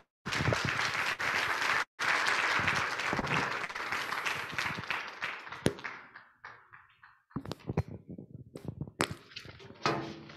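Audience applauding, fading out after about six seconds, followed by a few scattered knocks and clicks.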